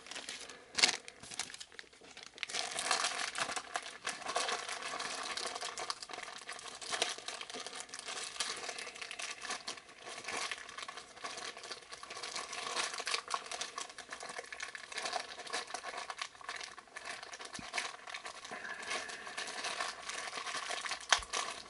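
Packaging crinkling and rustling as it is handled, steady from about two seconds in, with a few sharp clicks mixed in.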